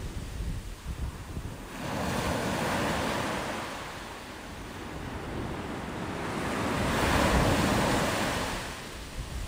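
Surf washing up a sandy beach, swelling loud and falling back twice, about two seconds in and again around seven seconds, with wind buffeting the microphone.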